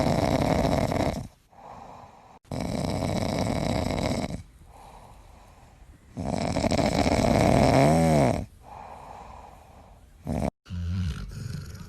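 A sleeping dog snoring loudly: three long snores a couple of seconds apart, with quieter breaths between them. A wavering whistle runs through the end of the third snore.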